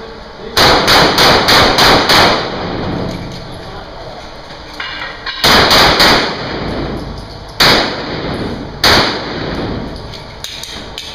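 Handgun shots fired during an IDPA stage, echoing in an indoor range. A fast string of six shots comes about half a second in, then three more in quick succession around the middle, then two single shots a little over a second apart.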